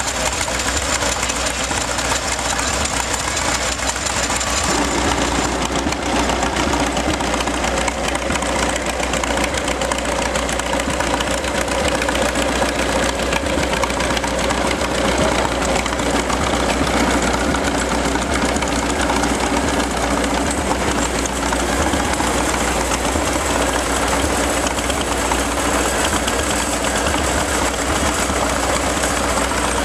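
International AS06 tractor engine running steadily, driving grain gristers and a roller mill. A new steady note joins the sound about five seconds in.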